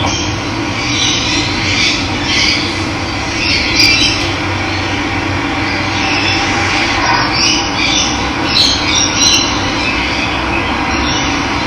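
Steadily running water, with wild birds chirping and calling over it again and again.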